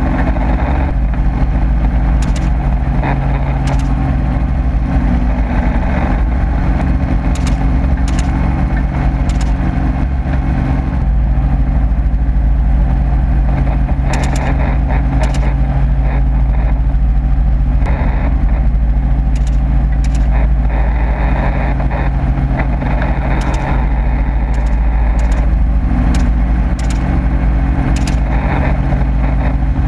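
Helicopter in flight: a steady, loud engine and rotor drone with an unchanging low pitch, with faint sharp clicks every second or two.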